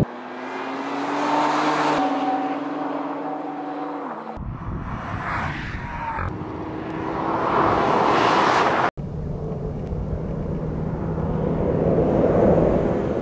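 Turbocharged straight-six engines of BMW M2 coupés revving hard under acceleration, heard in several short shots that cut abruptly from one to the next.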